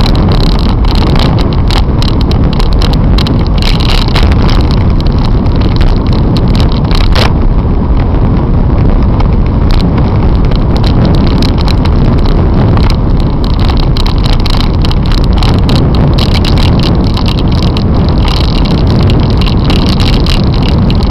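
Loud, steady wind buffeting on the microphone of a camera on a bicycle being ridden along a road, a deep, even rush with no breaks.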